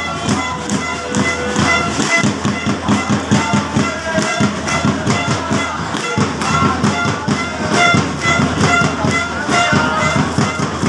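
Supporters' band drumming a fast, steady beat, about four strikes a second, with a wind instrument playing short held notes over it.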